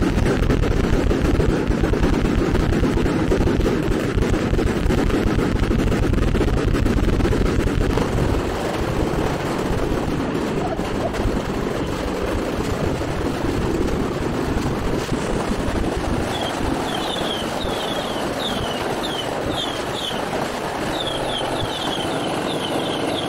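A firecracker barrage going off in a dense, continuous crackling roar, with a heavy low rumble for the first third. In the last third a run of short high chirps repeats about twice a second over the crackle.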